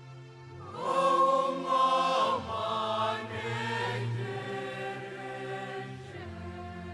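Choral music: a choir sings sustained chords, swelling into a louder, fuller passage about a second in, then easing back to a softer held chord.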